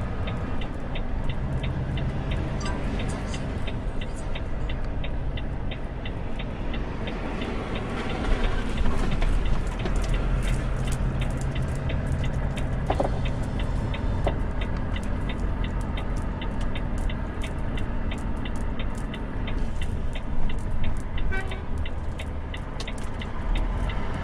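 Volvo truck's diesel engine running steadily while driving, heard from the cab, with an even ticking about three times a second throughout.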